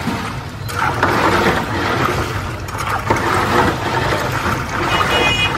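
Busy street ambience: steady traffic hum with indistinct voices, and a short high beep about five seconds in.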